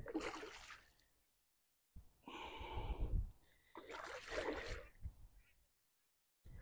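A person breathing hard and gasping: three breathy bursts, the second with a low rumble under it.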